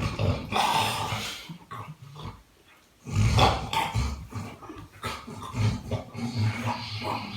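A person snoring: two long, rasping snores, the second starting about three seconds in after a short pause.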